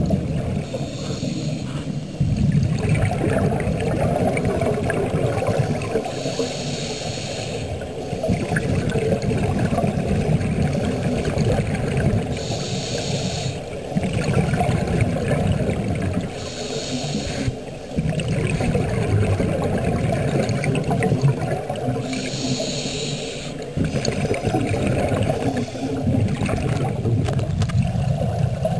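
Scuba diver breathing underwater through a regulator: a hissing inhale of a second or so roughly every five seconds, between long rumbling, bubbling exhales.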